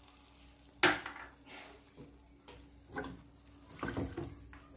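Silicone spatula stirring wet chicken masala in a non-stick kadai, with a few short knocks and scrapes against the pan, the sharpest about a second in.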